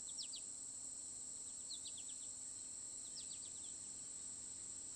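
Steady high-pitched chorus of insects, with a bird giving three or four short runs of quick, falling chirps.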